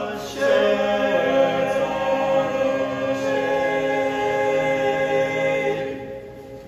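Male a cappella barbershop quartet, four voices, settling on and holding the long final chord of the song, which fades out near the end.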